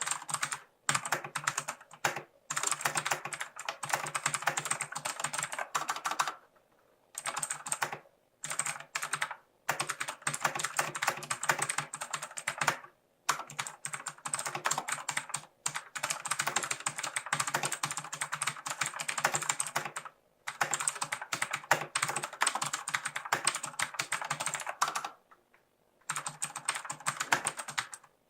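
Steady fast typing on a Lutis Lunatic K801 mechanical keyboard with Outemu clicky switches: dense runs of sharp key clicks, broken by a few short pauses.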